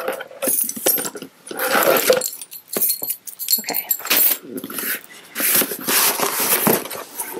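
Cardboard shipping box being slit open with a knife and unpacked: an irregular run of scraping, tearing and crinkling of tape, cardboard flaps and paper.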